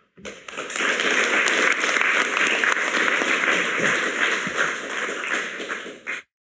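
Audience applauding: dense clapping that builds over the first second, holds steady, then cuts off suddenly about six seconds in.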